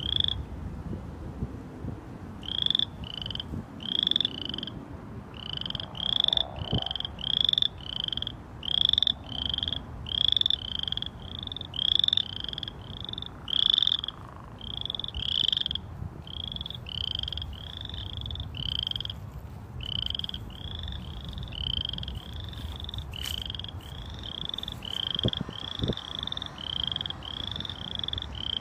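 Frogs calling from a pond: a loud, steady racket of short, slightly rising calls, about one and a half a second, with a short pause after the first call.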